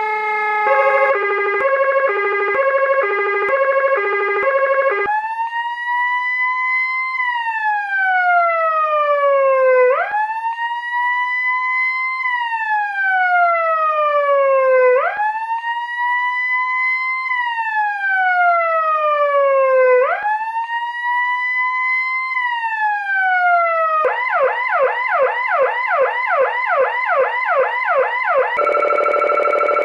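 Whelen HHS3200 electronic siren stepping through its tones: a hi-lo pattern alternating between two notes, then a wail rising and falling about every five seconds, four times. It then switches to a fast yelp of about three sweeps a second, and near the end to a steady harsh buzzing tone.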